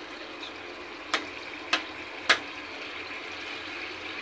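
Water being poured from a steel bowl into a pan of potato curry, a steady pour, with three sharp clicks between about one and two and a half seconds in.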